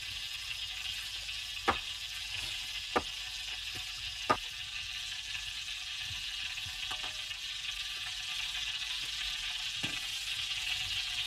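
Iron wok heating over an open wood fire: a steady frying sizzle, with three sharp crackles from the fire about two, three and four seconds in.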